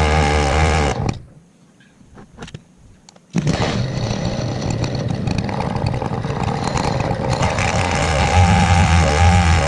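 A 105cc Stihl 070 clone chainsaw cutting through a pine log in an Alaskan chainsaw mill, running steadily under load. About a second in the sound drops out abruptly for about two seconds, leaving only a few faint knocks, then the saw comes back just as abruptly and runs on steadily.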